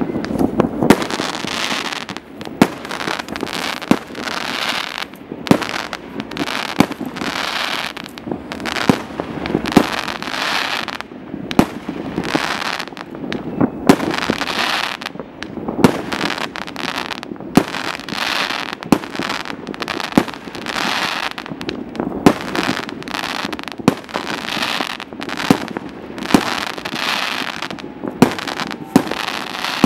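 Fireworks going off in a continuous barrage: sharp bangs, about one or two a second, over a steady crackle of bursting shells.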